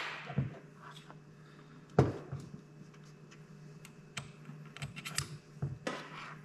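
Light clicks and knocks of an MSD distributor and small parts being handled on a table, with a sharper knock about two seconds in as the distributor is set down upright and a quick cluster of clicks near the end.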